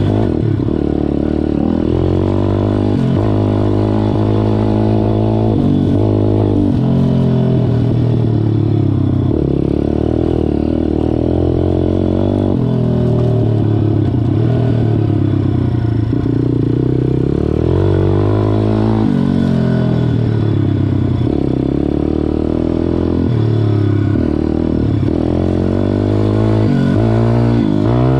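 MRF 140 RC-Z pit bike's single-cylinder four-stroke engine under way, its revs climbing and dropping again and again as the throttle is opened and closed.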